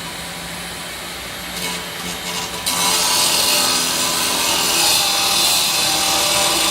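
A power tool cutting: a steady, harsh noise that steps up sharply in loudness about a third of the way in and then holds.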